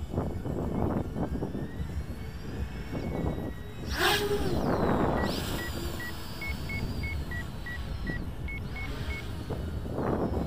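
Leap 3D quadcopter's electric motors and propellers whining and shifting in pitch as it lifts off and climbs, under gusty wind buffeting the microphone. A sharp knock comes about four seconds in, then a run of short electronic beeps in two alternating pitches.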